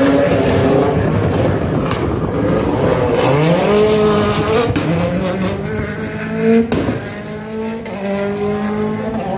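Rally car engine running hard at high revs, its pitch climbing about three seconds in, then rising and falling, with one sharp crack about two-thirds of the way through.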